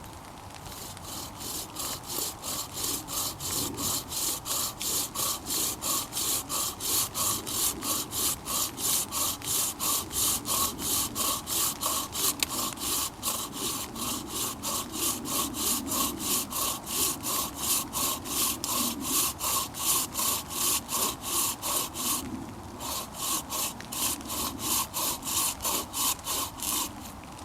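Improvised bow saw, a Bahco blade strung in a wooden frame with bank line, cutting wood with quick, even back-and-forth strokes, about three a second. The strokes stop briefly near the end, then start again.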